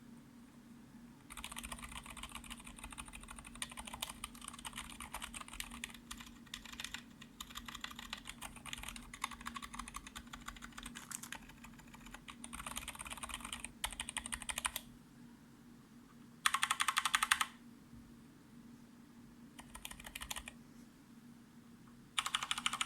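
Typing on an ErgoDox EZ split mechanical keyboard fitted with Cherry MX Brown switches on one half and lubed Zilent V2 62g switches on the other: a long run of steady keystrokes, then after a pause a short, louder rapid rattle of keys and two briefer bursts of typing.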